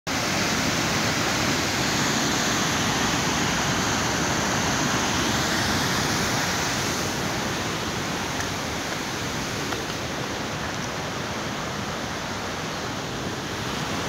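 Waterfall running in flood after heavy rain: a steady rush of falling water, easing a little about halfway through.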